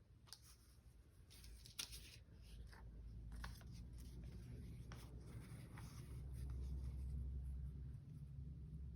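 Paper and journal materials being handled by hand: light rustling with small scattered taps and clicks, over a low rumble that grows louder in the second half.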